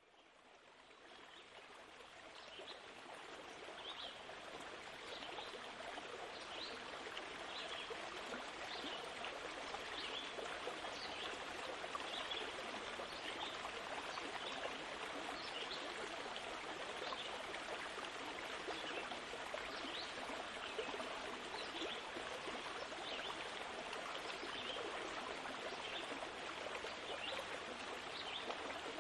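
Steady sound of a flowing stream, fading in over the first few seconds, with faint short high chirps scattered through it.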